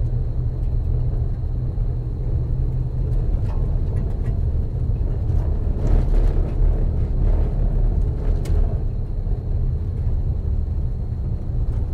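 Vehicle driving slowly on a gravel road, heard inside the cab: a steady low rumble from the engine and tyres, with a few faint rattles or clicks along the way.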